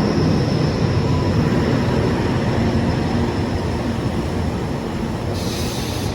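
Steady loud rumble and rattle of a moving vehicle, heard from on board, with a faint high steady whine over it. A short hiss comes in near the end.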